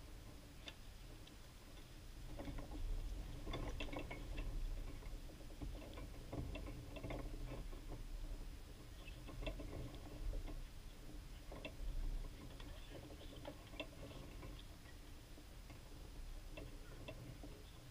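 Faint outdoor hard-court tennis ambience: many light ticks and taps, scattered irregularly, over a steady low rumble.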